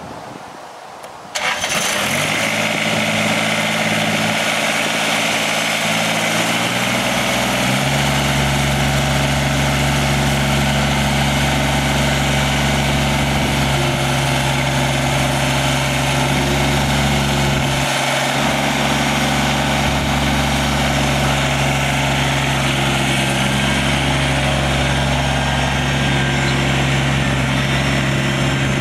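Kubota BX2350 tractor's D902 three-cylinder diesel engine starting about a second in, then running. Its pitch climbs over the next several seconds and then holds steady.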